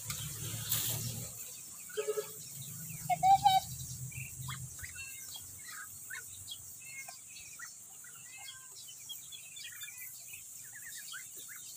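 A flock of ducks with many ducklings, the ducklings peeping in short high chirps throughout, with a few louder calls about two and three seconds in.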